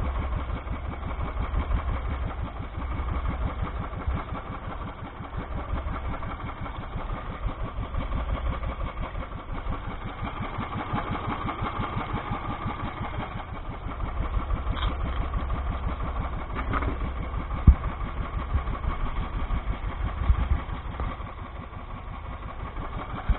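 Small motorized outrigger boat's engine idling steadily with a fast, even putter. A single sharp knock about three quarters of the way through.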